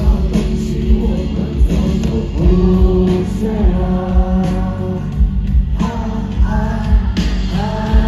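Live rock band playing: electric guitar and a steady drum beat under long held, sliding sung notes.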